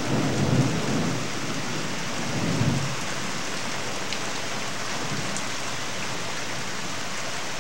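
Thunderstorm: steady rain with low rolls of thunder in the first second and again between two and three seconds in. The sound stops abruptly at the end.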